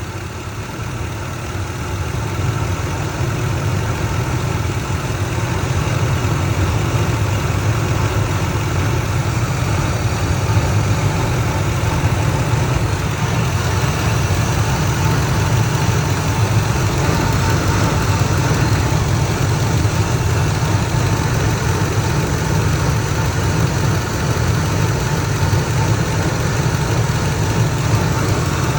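2003 Ford Expedition's V8 engine idling steadily while warming up, its level rising over the first few seconds and then holding even.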